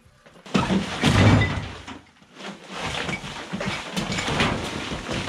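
Wheelbarrow load of rubbish and dust being tipped into a rusty metal trailer: a sudden rush of falling debris about half a second in, loudest in the first second, then rattling and scraping as the rest slides out.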